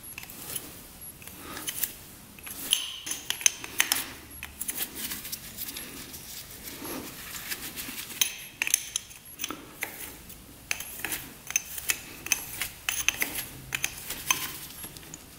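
Metal hand tools clinking and clicking against metal: a string of irregular light clinks, with louder clusters about three seconds in and again around the middle.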